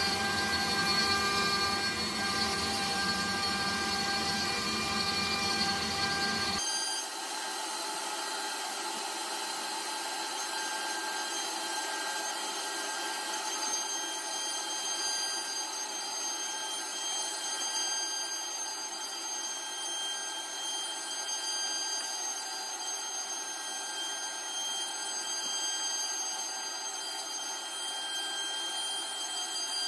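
Homemade CNC router's spindle whining steadily as its cutter mills a pocket into a white-coated chipboard panel, with a vacuum hose sucking up the chips. About six seconds in the sound changes abruptly and the deep rumble drops away, leaving the high whine and cutting noise.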